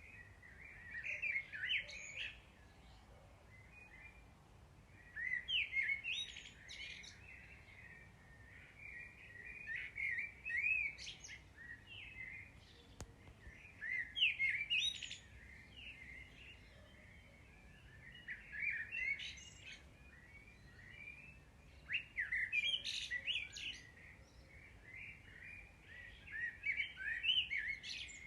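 Songbird chirping and twittering in short phrases of quick notes that come back roughly every four seconds.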